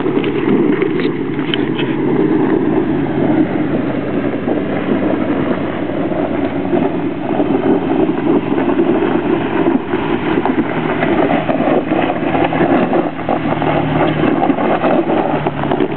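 Jeep Wrangler TJ engine running under load as it crawls up a steep, rutted dirt trail, with scattered clicks and knocks underneath.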